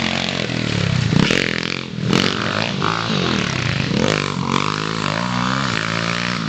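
Small four-stroke YCF 140 pit bike engines revving hard as the bikes ride past and away. The pitch rises and falls repeatedly with throttle and gear changes.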